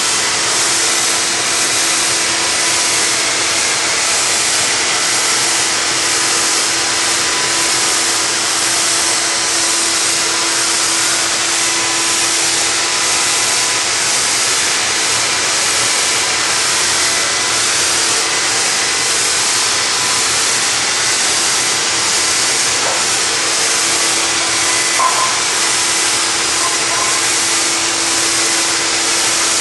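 Handheld electric mold sprayer running steadily, its motor humming under a loud, even hiss as it sprays mold encapsulator out as a fine mist.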